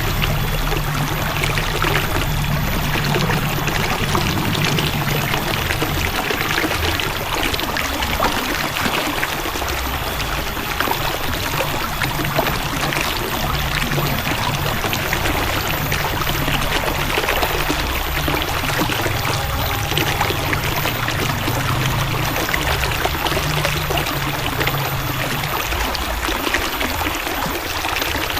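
River water flowing and splashing steadily over rocks, with a low rumble underneath that stops near the end.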